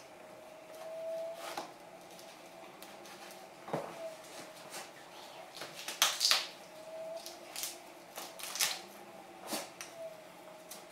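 Knife work and handling on a deer's lower legs while the shanks are taken off: scattered clicks, scrapes and soft knocks, the loudest a pair of sharp knocks about six seconds in.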